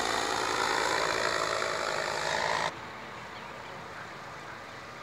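Paramotor engine and propeller passing close by, a loud steady buzz that cuts off abruptly a little over halfway through, leaving only a much fainter, duller sound.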